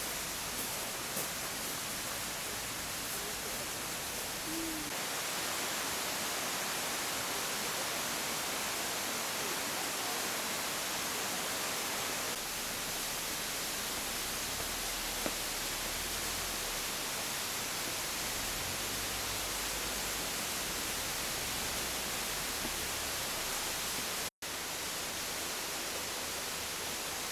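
Steady, even rushing noise of a mountain stream flowing beside the shrine path, with one short low hoot about five seconds in. The sound cuts out for an instant near the end.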